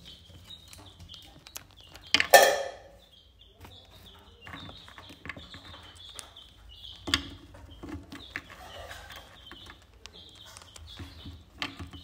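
Indian ringneck parakeet pecking and nibbling right at the microphone: many small, sharp beak clicks and taps, with one louder burst about two seconds in.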